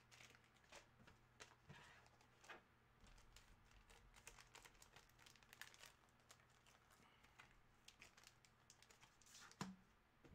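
Near silence: room tone with a faint steady hum, scattered soft clicks and crinkles, and a sharper knock near the end.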